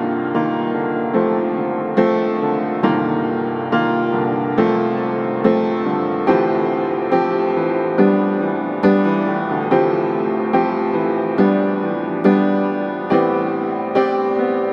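Background piano music: a slow, even line of struck notes, a new note about every second, each ringing and fading before the next.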